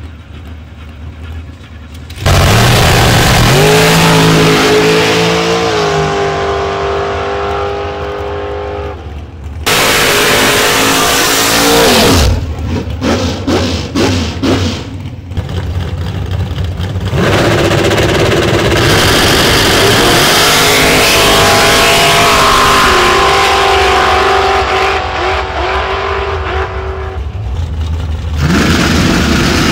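Drag-racing cars at full throttle: engines rev up and hold a high pitch in several loud runs that begin and end abruptly, over a steady low rumble. Around the middle, one engine's pitch drops sharply, followed by a run of sharp pops.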